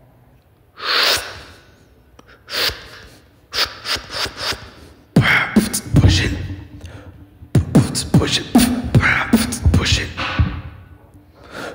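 Beatboxing into a microphone, all made with the voice: two hissing swells early, then a few clicks, then from about five seconds in a dense run of vocal drum sounds (deep kicks, snares and clicks) that stops shortly before the end.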